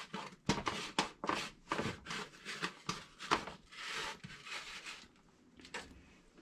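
Hands pressing and shuffling seasoned squirrel pieces around a paper-lined baking sheet: a quick run of soft rubbing, rustling scrapes that dies away about five seconds in.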